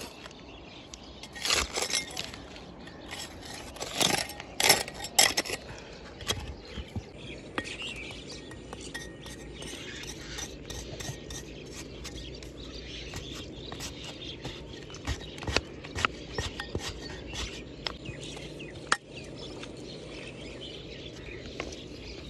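A metal knife blade digging and scraping into gravelly soil, with pebbles clinking against the blade and each other. Several sharp clinks come in the first five seconds, then lighter steady scraping with small ticks.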